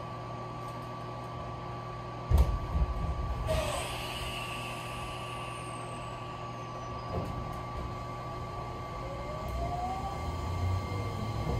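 Electric train at a station stop: a heavy thud about two seconds in, then a burst of hissing air as the brakes release. Near the end the motors' whine rises in pitch as the train starts to move off.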